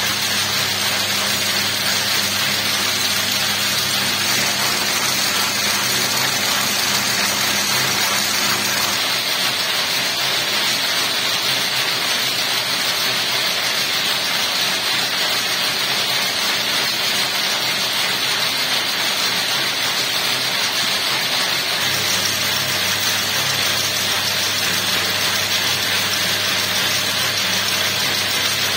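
Electric braiding machine running steadily, its bobbin carriers circling to braid silk cord: a dense, even mechanical whirr. A low hum under it fades out about nine seconds in and returns about twenty-two seconds in.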